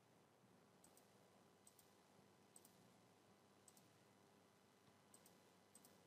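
Near silence with about six faint, scattered computer mouse clicks, each a quick double tick of press and release.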